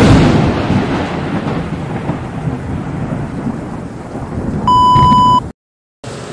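Intro sound effect: a sudden deep, thunder-like rumbling boom that slowly fades. Near the end comes a steady high electronic beep lasting under a second.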